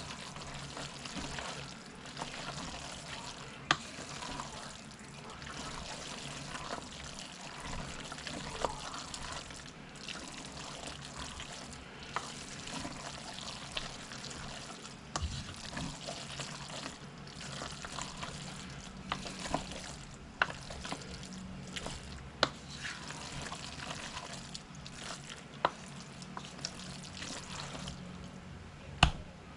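Wooden spoon stirring shredded cheese into thick, sticky macaroni in a pan: a steady stirring sound, with sharp taps of the spoon against the pan every few seconds.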